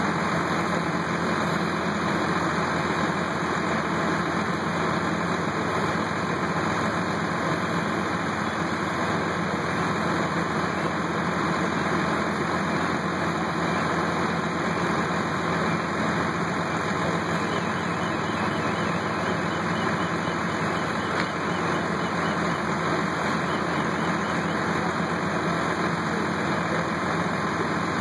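Fire apparatus diesel engines running steadily at the fireground: a constant engine drone that does not change.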